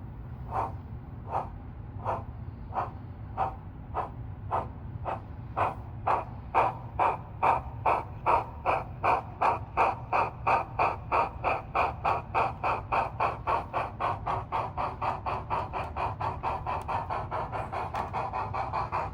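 Sound decoder speaker of an HO-scale DCC model of the steam locomotive Tornado playing steam exhaust chuffs. They start slow, about one a second, and quicken steadily to about four a second as the locomotive gathers speed, over a low steady hum.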